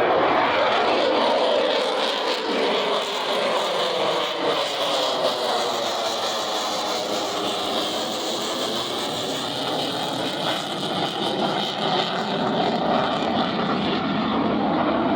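Military fighter jet's engines heard in a long continuous pass, a loud dense rush whose pitch bands slowly bend as the jet moves across the sky. It eases a little in the middle and swells again near the end.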